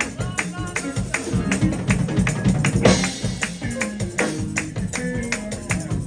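Fast Pentecostal praise-break music: rapid, driving drumming and percussion over a moving bass line, with a loud crash-like hit about three seconds in.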